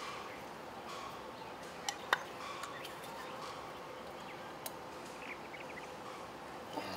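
Handling of glued PVC pipe fittings, a slice valve and heater union being turned and pushed together by gloved hands, with light plastic clicks and two sharp knocks about two seconds in, over a faint steady hum.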